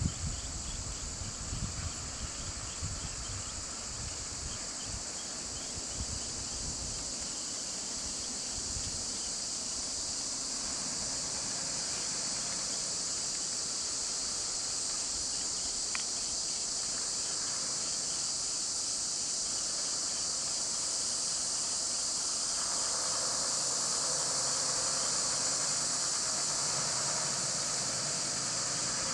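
Steady, loud high-pitched insect chorus, cicadas or crickets in roadside forest. Low rumbling runs through the first several seconds, and a low hum grows in the last third.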